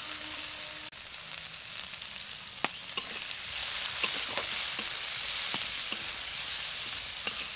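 Chopped onion sizzling as it fries in hot mustard oil in a kadai, with scattered sharp clicks of stirring. The sizzle gets louder about halfway through.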